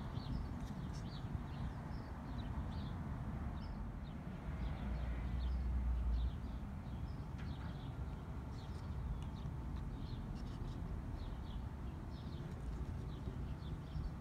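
Small birds chirping on and off in the background, short high chirps scattered irregularly, over a low outdoor rumble that swells for a couple of seconds about four seconds in.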